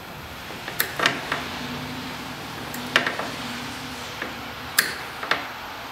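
Cutters working at the knot of a snowmobile's recoil starter rope inside its plastic pull handle: about half a dozen sharp clicks and snaps, unevenly spaced, as the tool bites and the handle shifts.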